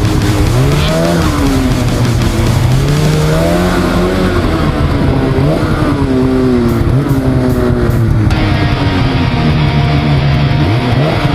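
Snowmobile engine running hard, its revs rising and falling again and again as the throttle is worked, over a steady rushing noise.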